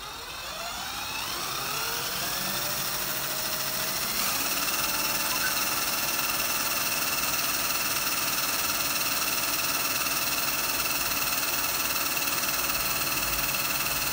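Cordless drill spinning a washing-machine motor that is being used as a generator. The drill's whine rises in pitch over the first few seconds as it speeds up, then holds steady.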